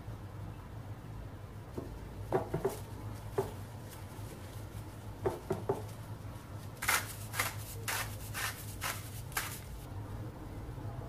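Eggplant slices being laid into a bowl with a few soft knocks, then a herb shaker shaken over them, six quick sharp shakes about two a second. A steady low hum runs underneath.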